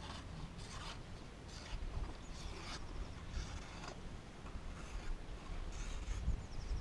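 A freshly sharpened Scandinavian-grind knife blade slicing through a sheet of paper in a series of short rasping strokes, roughly one a second. The cuts test the edge after a quick sharpening.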